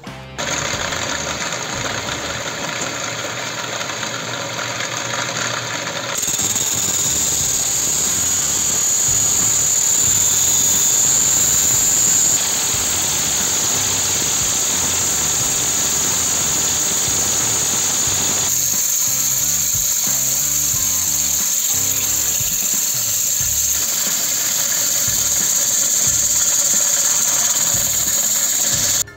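Homemade belt-driven lathe running, spinning a steel tube. About six seconds in, an abrasive cutting disc bites into the tube with a steady high screech. Later the tube is sanded with a strip of abrasive cloth held against it as it turns.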